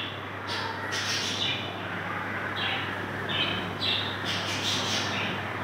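Short, high squawking bird calls, about two a second, over a steady low hum.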